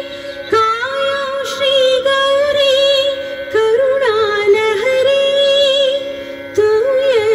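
Recorded music from a sound and light show's loudspeakers: a woman singing a slow melody in three phrases of long, ornamented held notes over a steady drone.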